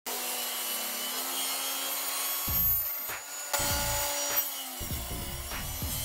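Table saw running and cutting through a thick hardwood block. A steady hum gives way, about two and a half seconds in, to heavier cutting sounds in three pushes as the blade bites into the wood.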